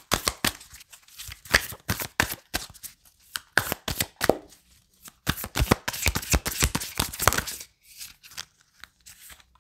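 A deck of oracle cards being shuffled by hand: a long run of quick papery card clicks, thickest about six to seven seconds in and thinning out near the end.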